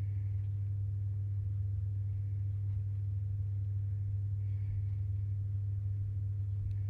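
Steady low electrical hum with a faint higher tone above it, and faint soft scratches now and then from hand knitting needles and yarn.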